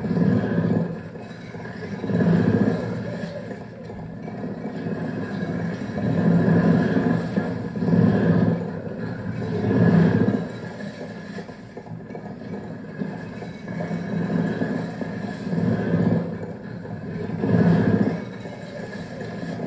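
Layered cassette tape loops playing on four Walkman-style portable cassette players, mixed through a small mixer: a dense, noisy droning texture with a few held tones that swells and ebbs in repeated waves every couple of seconds.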